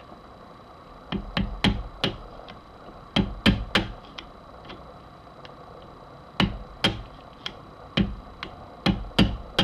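Hammer taps on the vent rib of a shotgun barrel, knocking the rib down the barrel: about a dozen sharp metallic taps in clusters of two to four.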